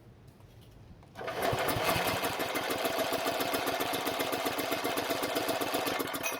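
Powermate generator's small four-stroke engine being cranked over steadily for about five seconds during a compression test, a fast even mechanical chatter that starts about a second in.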